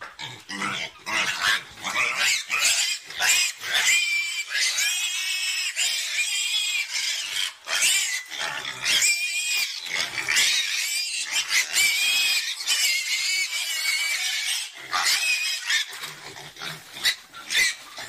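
A group of young domestic pigs squealing again and again in short, high-pitched, arching squeals, with lower grunts near the start and again near the end.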